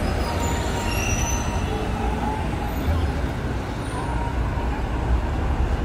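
Street traffic: a steady rumble of passing vehicles, with a brief faint high squeak about a second in.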